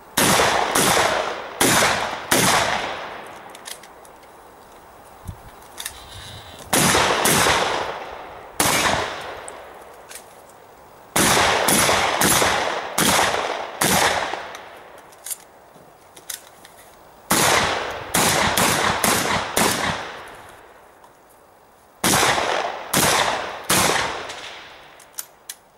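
Shotgun fired in quick strings of two to six shots, each shot a sharp report with a trailing echo. Five strings come a few seconds apart.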